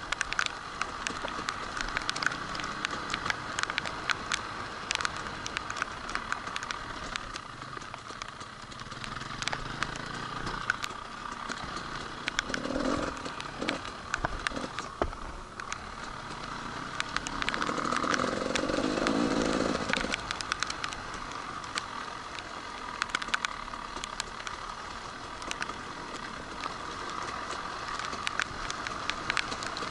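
Enduro motorcycle engine running steadily as the bike rides, with frequent sharp clicks and knocks over it. It gets louder for a couple of seconds about two-thirds of the way through.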